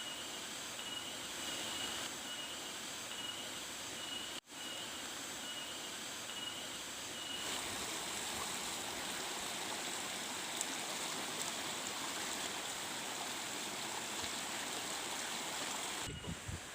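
Steady rush of running water, like a forest stream, with a high-pitched chirp repeating at an even pace through the first half. The sound cuts out for a moment about four seconds in.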